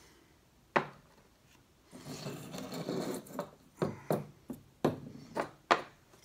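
Metal suppressor baffles and parts being set down one by one on a table: a series of short knocks, with a stretch of rubbing and rattling about two seconds in.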